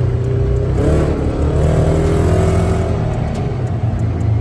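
Side-by-side utility vehicle's engine running on the move, heard from inside the open cab. About a second in, a whine rises in pitch as the vehicle speeds up, then holds before easing off near the end.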